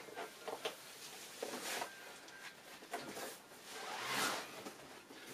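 Rustling and scraping of a sand-filled fabric gunny sack and a rubber resistance band being handled and shifted on carpet. A few light clicks come first, then several swishing swells, the loudest near the end.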